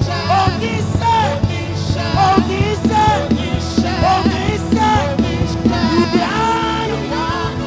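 Live gospel worship music: a singing voice over a band with a steady drum beat and bass.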